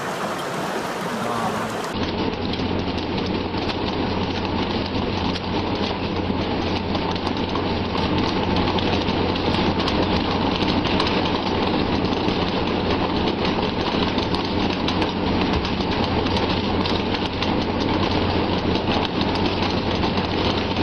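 Vessel's engine running with a steady low drone under a loud rushing wash of sea water and spray, dotted with many small knocks. The drone comes in about two seconds in.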